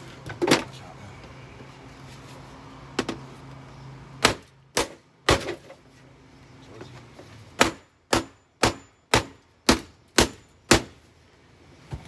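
Hammer blows on a Kenmore canister vacuum cleaner's canister during demolition. There are a few scattered strikes, then a rapid run of seven hard blows about two a second near the end.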